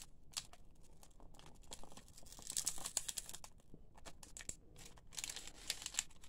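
Foil-lined trading-card pack wrapper being torn and peeled open by hand: scattered crackles and crinkling rustles, louder about two and a half seconds in and again near the end.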